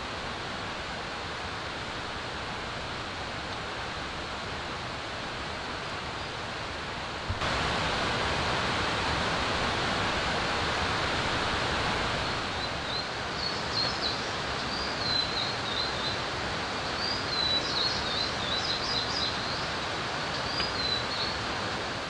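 Steady rushing water noise from rain and running water in a wet forest. It jumps suddenly louder about seven seconds in. From about halfway, small birds sing short, high chirping phrases on and off over it.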